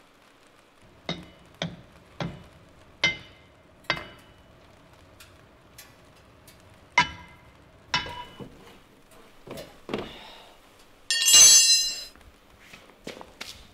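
A series of sharp metallic knocks and clinks from a spanner working on a car, then near the end a combination spanner drops and clangs, ringing brightly on the concrete floor.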